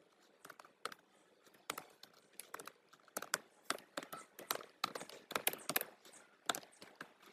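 Computer keyboard typing: a run of light, irregular key clicks, several a second, coming faster after the first second or so.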